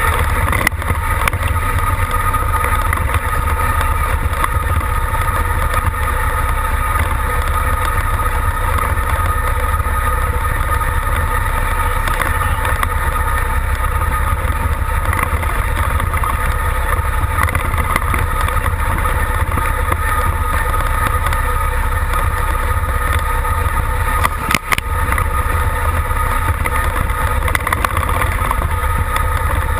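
An engine running steadily at idle close by, with a deep rumble and a steady whine over it; the sound drops out briefly about 25 seconds in.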